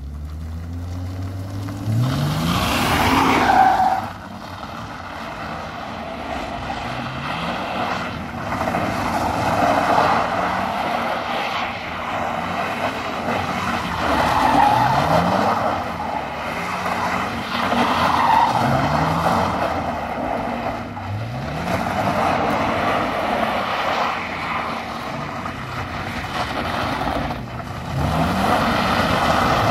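BMW Z3 2.8's straight-six engine revving hard again and again as the car drifts, its tyres squealing. The engine note climbs in pitch every few seconds, with the loudest burst about two to four seconds in.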